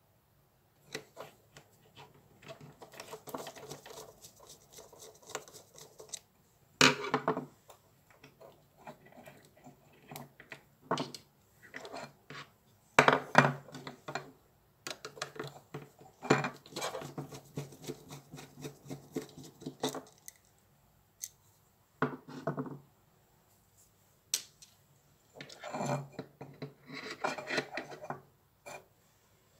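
Small plastic power-tool trigger switches and parts being handled and set down on a wooden board: irregular clicks, clacks and rustling, with louder knocks about seven, thirteen and twenty-two seconds in.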